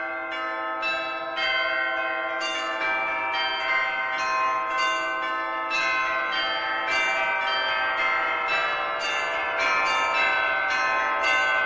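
Church bells ringing a rapid sequence of strikes, about two a second, each note ringing on and overlapping the next.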